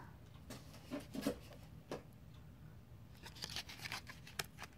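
Faint, scattered clicks and rustles of a folded cardboard hang tag being handled and flipped open.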